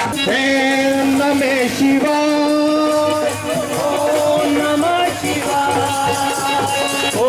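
Music: a held melody line that slides up into its notes, over shaken rattle percussion.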